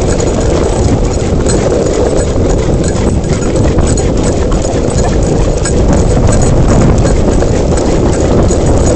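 Skateboard wheels rolling over asphalt: a loud, steady rumble scattered with many small clicks.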